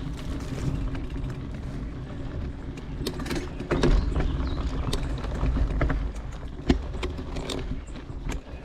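Wind rumbling on the microphone of a camera moving along a dirt trail, with scattered sharp clicks and knocks from the ground and gear, more of them in the second half.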